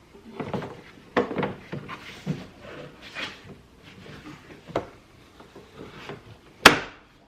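Plastic top cover of a Ram 1500 tow mirror being pressed onto the mirror: irregular clicking and knocking of plastic, with one sharp snap near the end as a clip pops into place.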